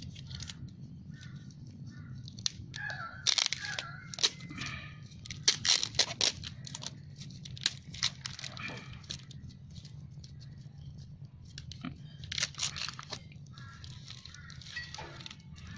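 Clear plastic wrap and electrical tape being peeled and pulled off a soil-filled air-layering pod on a tomato stem: irregular crinkling and tearing sounds.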